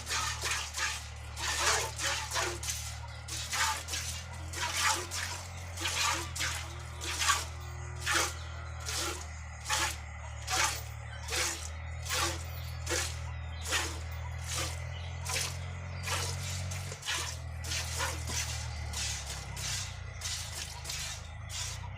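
Milk squirting into a pail as a cow is hand-milked, in an even rhythm of about two squirts a second. A low steady hum runs underneath.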